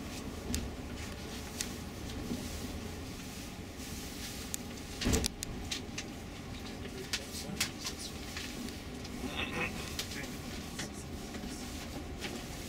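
Tour coach driving slowly, heard from inside the cabin: a steady low engine and road rumble with frequent light clicks and rattles, and a louder knock about five seconds in.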